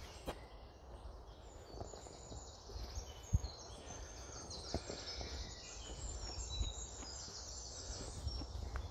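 Woodland birds singing in short high chirps and trills, over a low rumble of walking and camera handling. A single low thump, likely a footfall or knock on the camera, stands out about three and a half seconds in.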